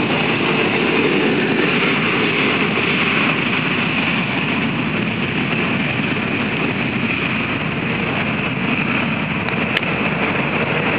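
Jet engines of a Boeing 737-800, its two CFM56-7B turbofans, running steadily as the airliner moves past on the ground: a high whine over a low rumble.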